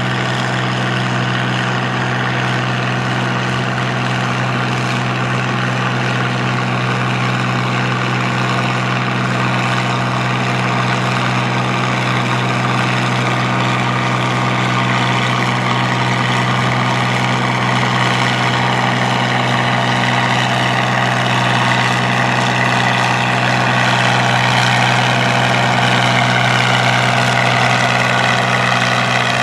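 Farmall 706 tractor's six-cylinder engine running steadily under heavy load as it pulls a weight-transfer sled, the pitch and loudness creeping up slightly near the end.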